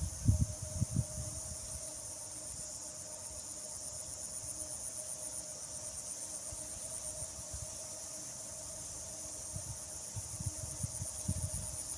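Insects chirring steadily in a high, finely pulsing trill, with a fainter lower steady tone beneath. A few low thumps come at the start and again near the end.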